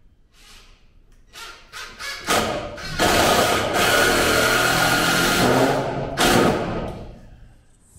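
Cordless drill driving a screw into a wooden 2x4, with a few short bursts at first, then a steady run of about three seconds and one more brief burst near the end.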